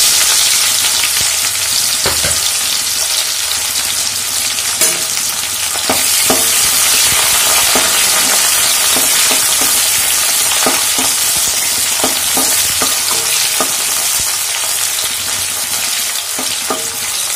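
Freshly added sliced onions sizzling steadily in hot oil in a metal kadhai. A spatula scrapes and knocks against the pan now and then as they are stirred.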